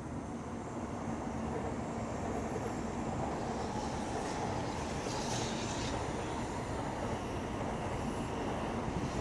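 A train passing on an elevated railway track: a dense, steady rumble that grows louder at first and then holds.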